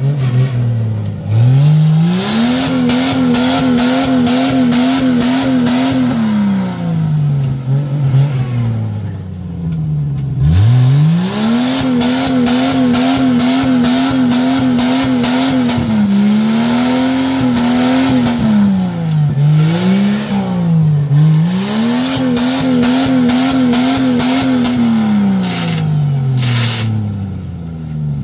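Jeep Cherokee XJ engine revved hard and held at high revs several times, dropping back between pushes, with its mud tyres spinning and slinging mud as it tries to climb out of a deep mud hole where it is stuck.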